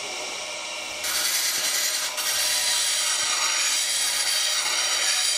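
A bench grinder runs, and from about a second in a steel spindle roughing gouge, laid flute-down on the tool rest, grinds against the spinning wheel with a steady hiss until just before the end. The grinding flattens the gouge's edge so the tool is balanced.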